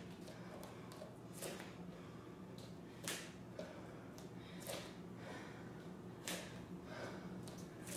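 Bare feet landing on a hardwood floor and exercise mat during repeated hopping lunges: a soft thud about every second and a half, over a low steady hum.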